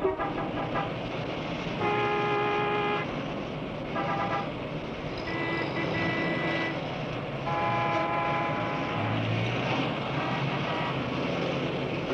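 City street traffic: a steady roar of traffic with car horns honking about five times, some blasts held for a second or more.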